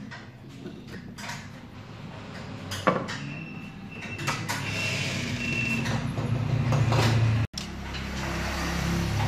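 Small clicks and knocks from a plastic power-strip housing and wires being handled on a wooden bench. Under them, a low engine-like rumble grows louder from about three seconds in and then holds steady.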